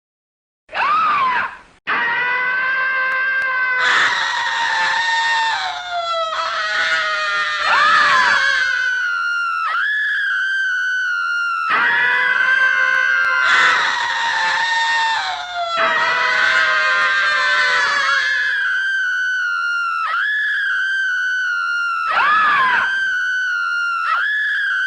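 Skywalker Sound 'Male Scream 5' sound effect: a short scream about a second in, then long layered male screaming with high wavering held notes. A stretch of the screaming is heard twice over.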